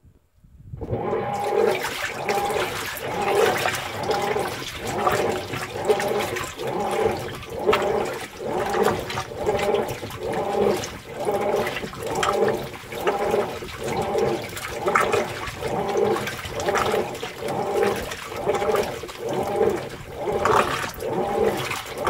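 Whirlpool Cabrio top-load washer starting its wash agitation about a second in: water sloshing and churning through a load of towels and sweats in regular surges about once a second, over a steady motor hum. The sloshing is loud because the lid is open.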